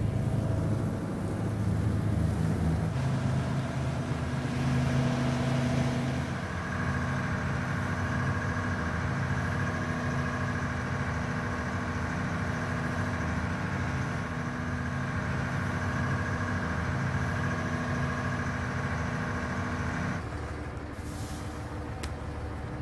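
Inboard engine of a small fishing caique running steadily under way, a continuous low hum with a constant pitch. It quietens slightly near the end.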